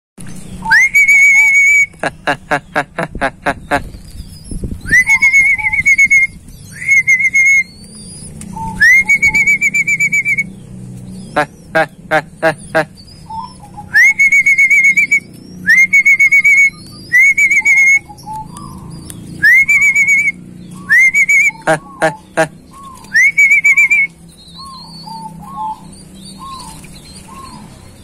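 A man's whistled bird-calling signal: a rising whistle that levels off into a held, slightly wavering note, repeated about a dozen times, with three bursts of rapid clicking in between; it is the same call always used to summon tame zebra doves. In the second half, short soft cooing notes from the zebra doves repeat.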